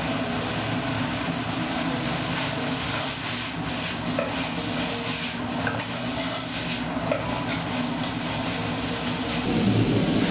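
Propane burner running steadily under a wok, with oil sizzling and a spatula scraping and ticking against the pan. Near the end the sizzle grows louder as more food goes into the hot wok.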